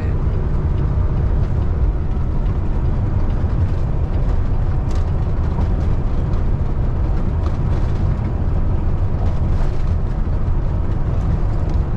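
Steady low rumble of a Peterbilt 579 semi truck's Cummins ISX15 diesel engine and road noise, heard from inside the cab while driving.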